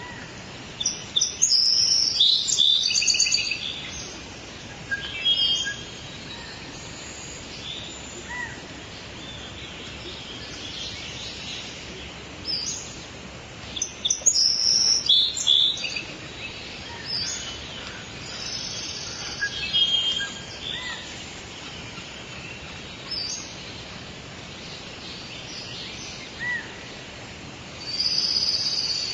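Songbirds singing and chirping in bursts over a steady outdoor background hiss, with the loudest phrases a second or so in, halfway through and near the end.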